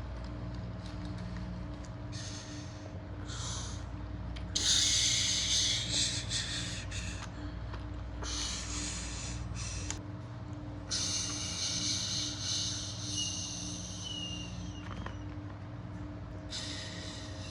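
Model train running with a steady electric-motor hum. It is broken by about six hissing bursts, the longest lasting several seconds.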